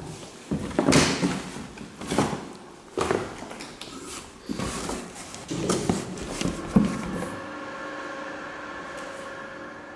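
Used leather winter boots being handled in a cardboard box: rustling and several knocks of boots against the cardboard over the first seven or so seconds. After that a steady hum with several tones carries on.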